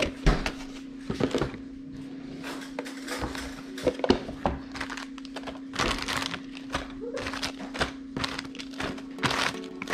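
Cardboard kit boxes and paper sheets being handled: irregular rustling and scraping with a number of light thunks, over a steady low hum.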